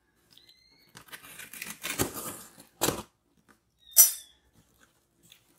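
Packing tape on a cardboard box being slit and torn open along the lid seam: scratchy scraping and tearing, a couple of sharp knocks on the cardboard about two and three seconds in, and a short, sharp rip about four seconds in.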